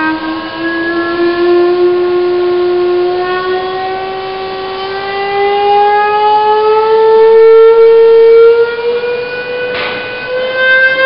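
Loudspeaker tone driving a Kundt's tube (standing-wave tube) exhibit, one sustained tone sliding slowly and smoothly upward by about an octave as the generator's frequency is turned up. A brief click near the end.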